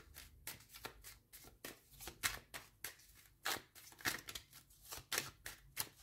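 A deck of tarot cards being shuffled by hand: a run of short, irregular papery slaps and flicks, about two or three a second.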